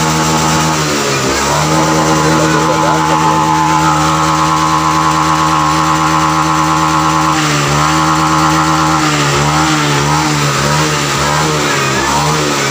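Honda Vario FI scooter engine being revved on the throttle to test it after the throttle position sensor was adjusted for a stutter at high rpm. The engine is held at a steady speed, dips briefly about a second in, then drops again after about seven seconds, after which the revs rise and fall unevenly.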